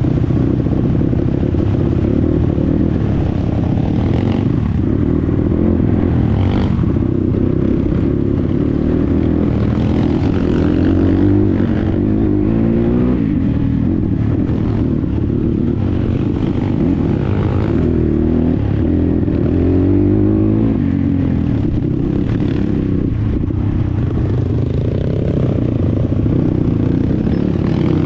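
Chinese 250 cc dirt bike engine running under load on a rough, rocky dirt track, the revs rising and falling with the throttle, with clattering from the bike jolting over ruts and stones.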